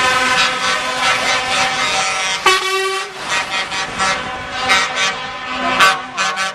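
Lorry air horns sounding over and over, several pitched horns overlapping, with a separate short horn blast about two and a half seconds in.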